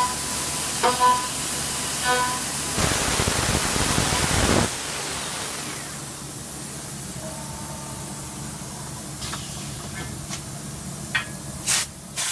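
CNC milling machine working, with a steady spray hiss and a few short pitched tones in the first two seconds. About four and a half seconds in, the hiss stops, leaving a quieter steady machine hum, with a few sharp clicks near the end.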